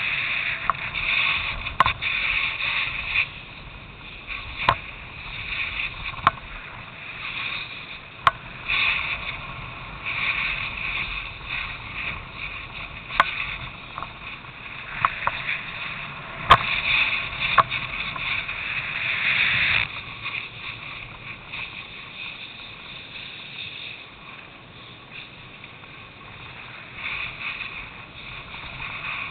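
Snowboard sliding and carving over snow: a rough hissing scrape that swells and fades with the turns and settles quieter for the last third, with sharp clicks and knocks every few seconds.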